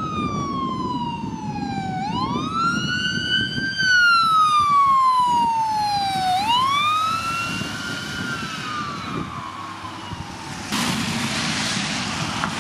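Ambulance siren wailing: a tone that slides slowly down and then sweeps back up, about twice, over low road rumble, fading out as the vehicle passes. Near the end a sudden steady rush of noise takes over.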